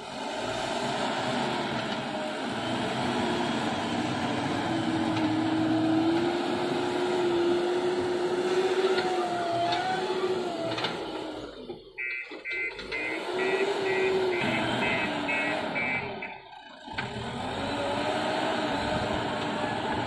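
Diesel engine of a JCB backhoe loader running under load, its pitch rising and falling as the machine moves and works the bucket. Near the middle, the reversing alarm beeps about eight times in a steady rhythm.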